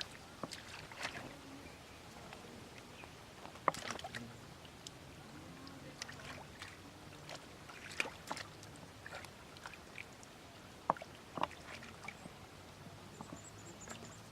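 Irregular small splashes and knocks in water, scattered short strokes with a few sharper ones, over a steady low hum.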